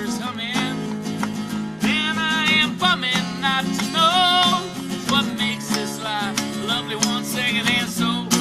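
Music with strummed acoustic guitar and a wavering melody line above it.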